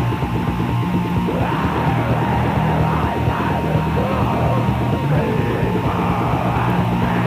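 Raw, lo-fi black metal rehearsal recording: a steady, dense wall of distorted band sound with harsh yelled vocals over it.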